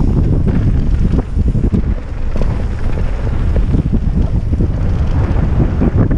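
Heavy wind buffeting on the microphone of a mountain bike riding fast downhill, over a steady rumble of tyres on packed dirt with irregular knocks and rattles from the bike over bumps.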